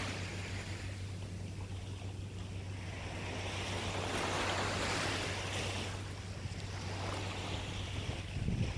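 Small waves breaking and washing up a sandy beach, the wash swelling and fading once around the middle, over a low steady rumble. A few low bumps near the end.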